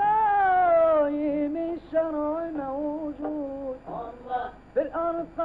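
Soundtrack music: a solo voice singing a melody whose pitch slides and wavers, in short phrases.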